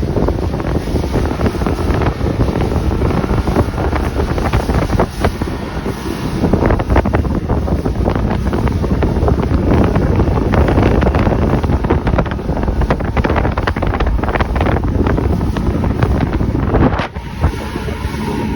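Heavy wind buffeting the microphone as a fishing boat runs across the lake, with the drone of its outboard motor underneath; it eases off briefly near the end.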